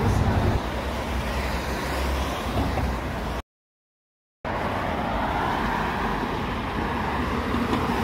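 Bus engine and road noise heard from inside a moving city bus, a low rumble that eases after about half a second. The sound cuts out completely for about a second, then a steady rushing noise follows.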